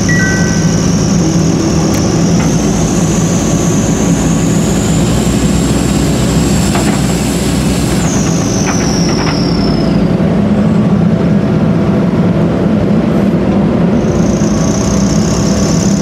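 JCB 3DX backhoe loader's diesel engine running steadily, with a faint high whine that rises and then falls away about halfway through.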